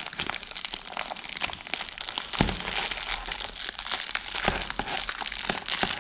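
Thin plastic shrink-wrap being peeled and crumpled off a DVD case, a continuous crinkling and crackling. It is interrupted by a dull bump about two and a half seconds in and another about four and a half seconds in.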